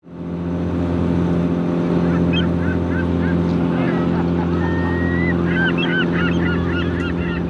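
A boat's engine running with a steady drone, fading in at the start, with bursts of short bird calls over it about two seconds in and again near the end.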